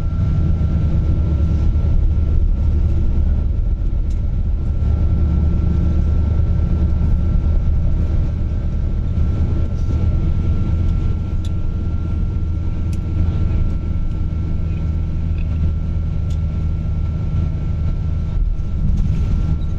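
Steady low rumble of a moving vehicle heard from inside its cabin, with a faint constant whine above it.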